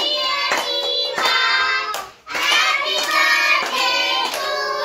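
Children singing a song together, with hand claps keeping the beat. The singing breaks off briefly about two seconds in.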